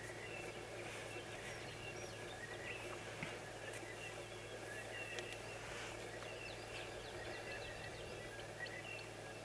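Faint bush ambience: short high chirps repeat throughout over a steady low hum and a soft background hiss.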